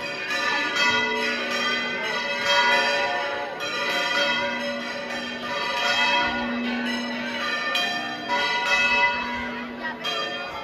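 Church bells ringing in a rapid peal, strike after strike overlapping with the ring of the one before.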